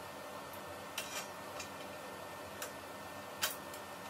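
Light clicks and ticks of small metal hardware against the clothing rack's metal frame as a bolt is fitted by hand, about five in all, the loudest about three and a half seconds in, over a steady low hiss.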